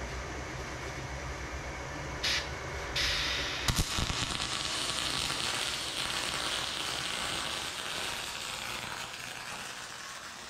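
Electric arc welding on a billet engine block: a brief strike of the arc about two seconds in, then a steady crackling hiss from about three seconds in that fades near the end. A low hum runs under the first few seconds.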